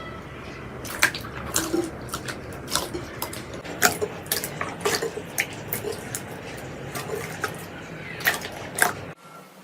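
Slime being squished and poked by hand, giving irregular wet clicks and pops. There is an abrupt cut to a different sound near the end.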